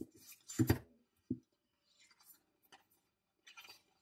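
Stiff cardstock oracle cards being handled: a card is slid off the deck and laid down with a soft tap under a second in, a smaller tick follows, then faint card rustles.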